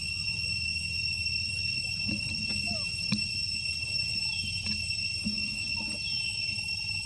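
Steady high-pitched insect drone of two even tones over a low rumble, with scattered short clicks and two brief falling chirps about four and six seconds in.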